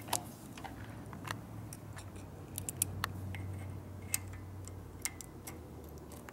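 Scattered small metallic clicks and ticks of hand tools working a small screw into the ignition points assembly, over a faint low hum.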